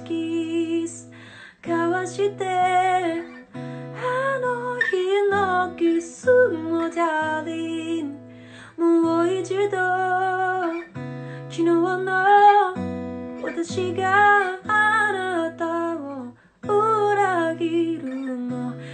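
A woman singing a slow, quiet song in phrases over a guitar accompaniment with sustained chords.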